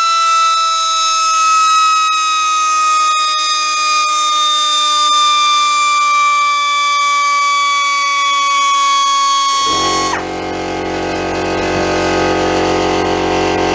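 Air die grinder running free on compressed air: a loud, high whine that slowly drops in pitch as the tank pressure falls. About ten seconds in, the air compressor's motor kicks in with a low, steady drone, and the grinder's whine cuts off half a second later.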